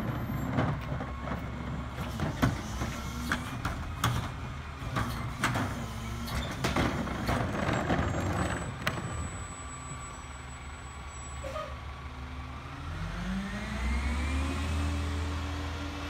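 CNG rear-loader garbage truck (2017 MRU chassis with E-Z Pack Goliath body) collecting: trash and a cart clatter and bang into the hopper in a run of sharp knocks over the idling engine. Past the middle, the engine revs up in a rising note, holds, and eases near the end.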